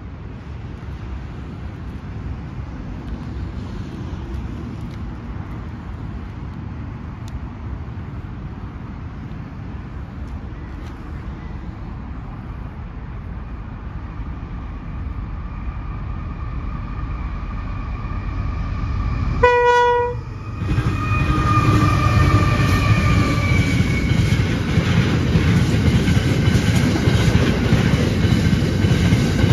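Empty steel freight train approaching with a rumble that grows steadily louder. About two-thirds of the way in the locomotive sounds a short horn blast. The locomotives pass with a slightly falling pitch, and the empty steel wagons follow, clattering over the rails.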